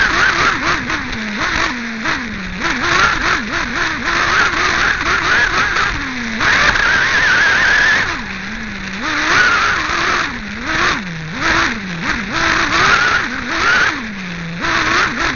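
Team Associated RC8B 1/8-scale buggy's nitro glow engine, recorded on board, revving up and down hard as the car races. The pitch rises and falls about once a second, with one longer steady high-revving stretch about halfway through.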